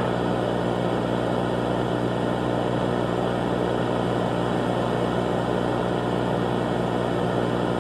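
A steady low hum with several evenly spaced overtones, even and unchanging throughout.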